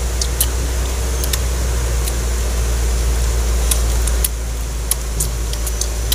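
Steady low machine drone from a nearby factory, dipping slightly about four seconds in, with scattered small clicks and wet smacks of a ripe mango being bitten and eaten.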